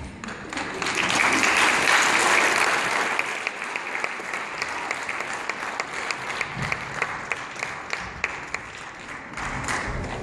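Audience applauding: the clapping swells about a second in and then thins to scattered separate claps.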